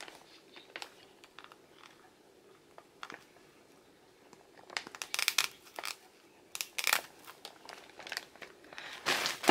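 Plastic packaging crinkling as a small cardboard box is handled and opened, in a few short rustles, mostly in the second half; quiet handling in between.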